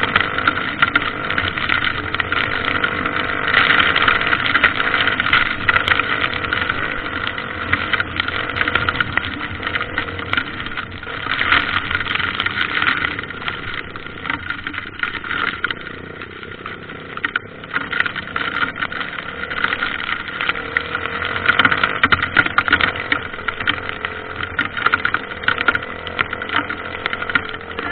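Motorcycle engine running, its level rising and falling in swells several times, as when the throttle is blipped.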